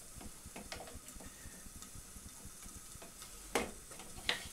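Food frying in a covered non-stick frying pan: faint, steady sizzling and crackling. Two sharp knocks come near the end, the second with a brief ring.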